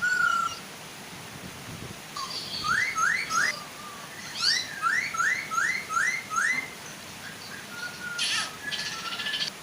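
Chinese hwamei (poksay hongkong) singing: a run of quick, repeated rising whistles, about three a second, then a brief harsher chattering call near the end. A steady soft waterfall rush runs underneath.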